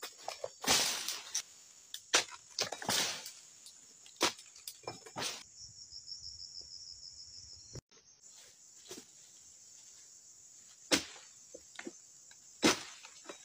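Insects trilling steadily with a high buzz, in an oil palm plantation. Through the first few seconds and twice near the end come sharp cracks and rustles as palm fronds are cut with a long-handled harvesting sickle and drop.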